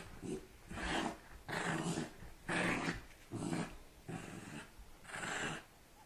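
A dog growling in short bursts, roughly one a second.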